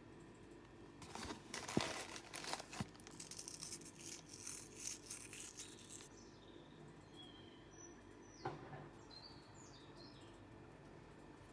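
A cardboard box of sea salt flakes being handled over a mixing bowl: a few seconds of scratchy rustling and crackling with a couple of sharp clicks. In the second half, a few faint high bird chirps.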